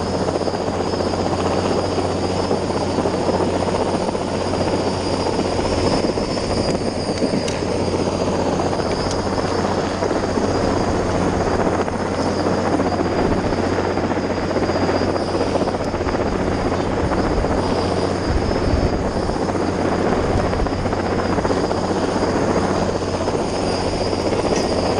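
Sikorsky S-58T helicopter hovering close overhead, its rotor and turbine engines running steadily, with a steady high whine over the rotor noise.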